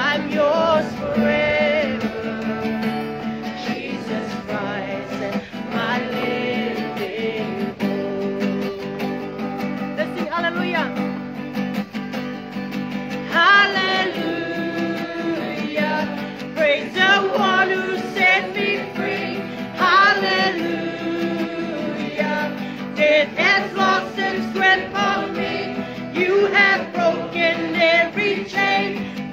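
A solo voice singing a song to acoustic guitar accompaniment.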